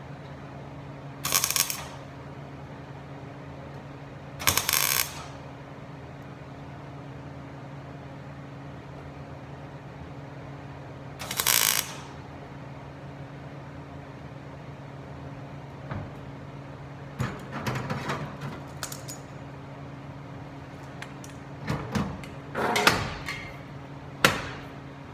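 Three short tack welds with a wire-feed (MIG) welder on thin sheet steel, each a crackling burst of about half a second, joining a butt-jointed patch panel to a truck's body. In the second half come scattered clicks and knocks from handling the sheet-metal panel and tools, over a steady low hum.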